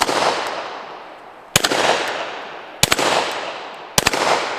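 Four 9mm pistol shots from a Glock 17, fired singly at irregular intervals of about a second or a second and a half. Each is a sharp crack followed by a long fading echo.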